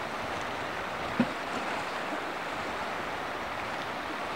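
Steady rushing of a river's current, with one short faint knock about a second in.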